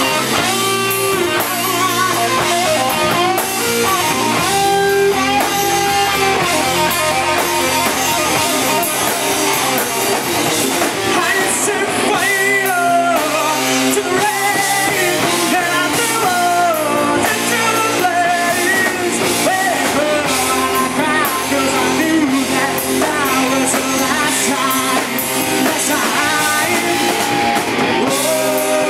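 Live rock band playing: a male lead vocal over electric guitars, bass guitar and drum kit, heard through a PA.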